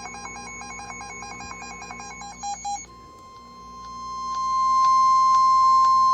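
Faint, rapidly stepping electronic data tones, then about three seconds in the NOAA Weather Radio 1050 Hz warning alarm tone fades in and holds as a single loud, steady tone. It is the attention signal that a warning bulletin is about to be read.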